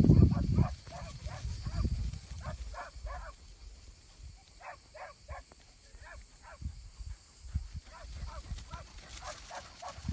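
A dog barking at a distance in quick runs of short barks, over a steady high-pitched hiss. Wind buffets the microphone at the very start.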